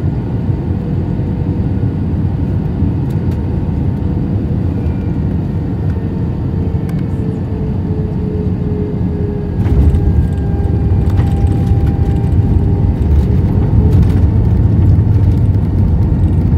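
Airbus A320 cabin noise during landing: a steady rumble of engines and airflow with a faint tone sliding slightly lower, then about ten seconds in a sudden louder, deeper rumble with scattered knocks.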